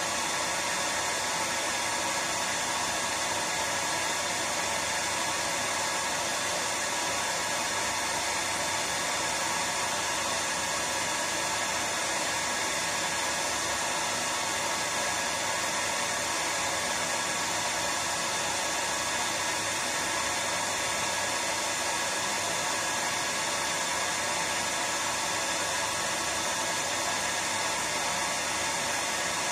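Hair dryer running continuously at a constant setting: an even, unchanging hiss of blown air over a faint steady motor hum.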